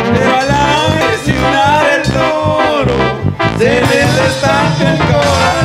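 Live band playing an instrumental passage of a corrido: a melody line over drum kit and a steady beat.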